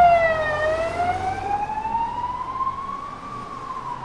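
Ambulance siren in a slow wail: the pitch dips just after the start, climbs slowly for about three seconds and begins to fall again near the end. It grows steadily fainter as the ambulance moves away, over a low rumble of street traffic.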